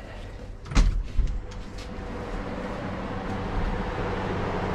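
Steady hum and hiss of a spray booth's ventilation, growing slightly louder, with a sharp knock about a second in and a smaller one just after.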